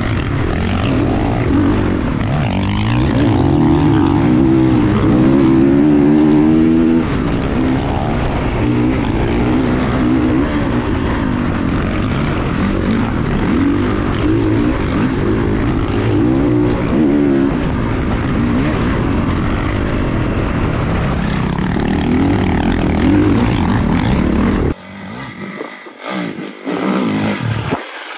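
Dirt bike engine being ridden hard on a rough trail, its pitch rising and falling with repeated revving as the throttle is worked. About three and a half seconds before the end the engine sound cuts off abruptly, leaving a much quieter stretch with a few sharp knocks.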